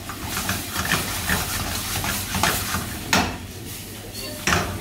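Metal ladle scraping and clicking rapidly against a frying pan as chili beef is stir-fried and sizzles over a gas flame, with two louder clanks, about three seconds in and near the end. A steady low hum runs underneath.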